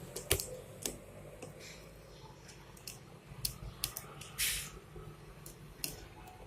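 Cardboard packaging of a laptop box being handled and opened: scattered light clicks and taps, with a short rustle or scrape about four and a half seconds in.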